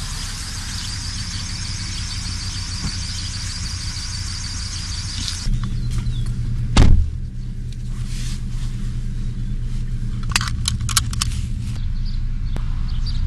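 Outdoor street ambience with a high-pitched squeal, then, from inside a small car, the engine's steady low hum, a heavy thump of a car door shutting about halfway through, and a few sharp clicks near the end.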